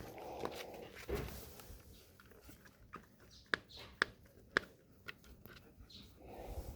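Quiet rustling with three sharp clicks about half a second apart near the middle.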